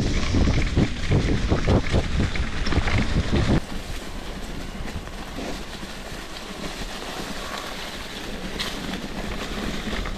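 Wind buffeting an action camera's microphone on a moving bicycle. It is a loud, gusty rumble for about the first three and a half seconds, then drops suddenly to a quieter, steady rush.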